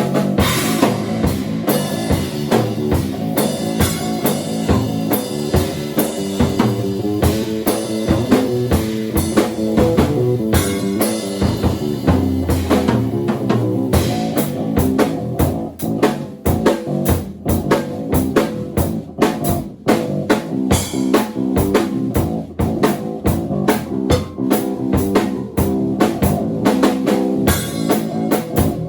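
Bass guitar and drum kit improvising together: busy, rapid drumming over a low, wandering bass line, with one long held low bass note about twelve seconds in.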